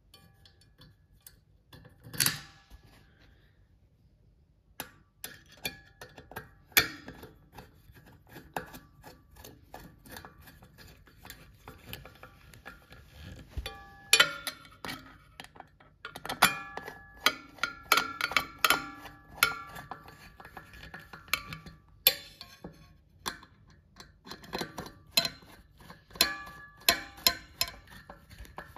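Screwdriver driving screws back into the finned aluminium heatsink casing of a solar inverter: a run of small metallic clicks and ticks, some of the louder knocks leaving a brief ringing from the metal.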